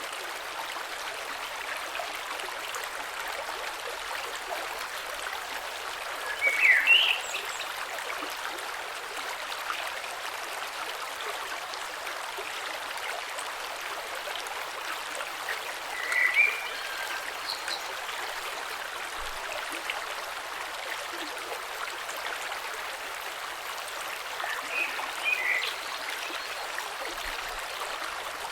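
Gentle creek flowing over stones below a small waterfall, a steady wash of running water. Three brief chirping calls stand out above it: about a quarter of the way in, just past halfway, and near the end.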